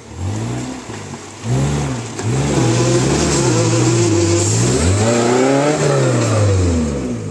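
Maruti Suzuki Gypsy off-road rig's engine revving hard under load while pulling out of a mud pit. Its pitch rises and falls over and over as the throttle is worked. It is softer for the first second or so, then loud.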